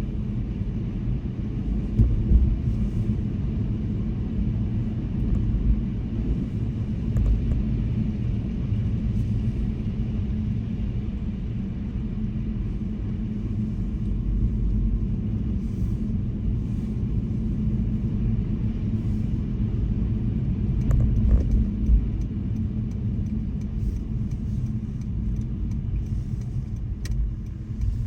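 A car driving, heard as a steady low rumble of road and engine noise with a few faint brief clicks.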